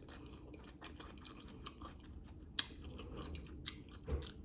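A person chewing a sausage dog topped with grinder salad close to the microphone: soft wet mouth sounds and scattered small clicks, one sharper click about two and a half seconds in.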